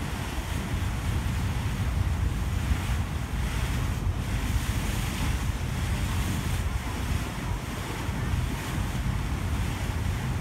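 The sightseeing cruise ship Santa Maria underway: a steady low rumble mixed with the rush of water and wind buffeting the microphone.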